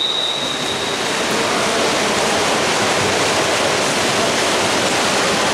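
A referee's whistle holds one steady high note and stops about a second in. Under it and after it runs a constant wash of indoor pool-hall noise: splashing water and crowd voices, blurred together by echo.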